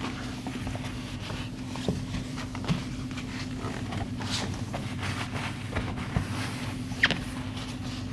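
Dry cloth being wiped over a stainless steel refrigerator door: soft rubbing with a few light ticks, over a steady low hum.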